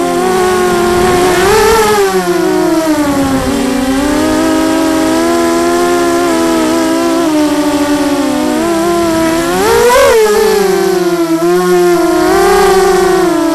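FPV racing quadcopters' electric motors and propellers whining, the pitch constantly rising and falling with the throttle. The sound swells with a sharp rise in pitch about two seconds in and again, loudest, about ten seconds in.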